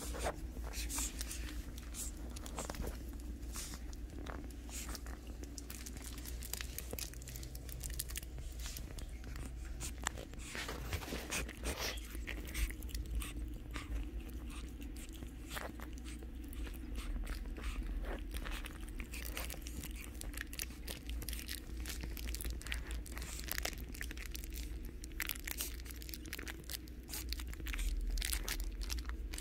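Shih Tzu puppies chewing and mouthing a plush toy and tussling on a fabric dog bed: irregular soft rustles and clicks close by, over a steady low hum.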